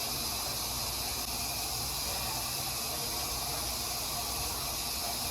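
A steady, even hiss that holds at one level.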